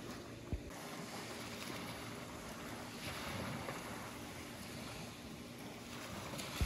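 Small waves washing onto a sandy beach, an even hiss that swells a little around the middle, with a brief low thump about half a second in.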